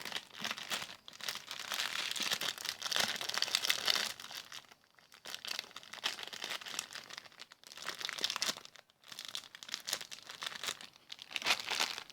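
Plastic crinkling and rustling as a stretch toy is handled, coming in spells: heavy for the first few seconds, sparse through the middle, and a strong burst near the end.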